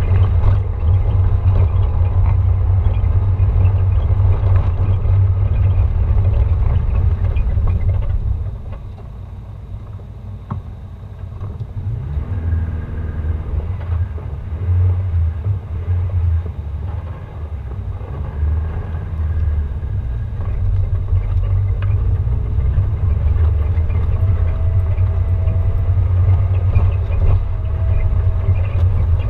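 Off-road vehicle driving slowly over a rough gravel forest track: a steady low rumble of engine and tyres, easing for a few seconds about a third of the way in, then building again.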